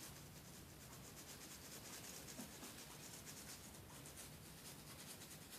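Faint, rapid scrubbing strokes on an iPod Classic circuit board, cleaning off dried Sprite residue.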